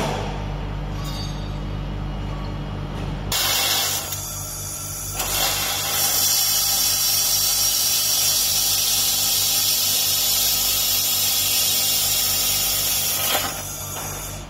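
2000 W handheld fiber laser welder with wire feed welding metal, a loud even hiss with a crackle: a short burst about three and a half seconds in, then a continuous run from about five seconds in until near the end. Before the welding starts, a steady low machine hum.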